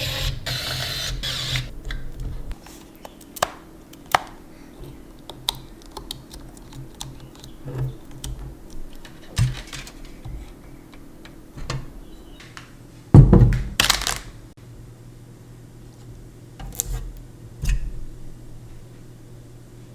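Scattered light plastic and metal clicks and taps of PC parts being handled and fitted, with a louder knock about thirteen seconds in and a brief hiss-like rustle at the start.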